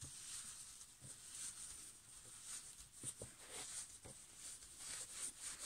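Damp towel wrapped around plastic film being rolled up by gloved hands: faint rustling with a few soft crinkles and taps.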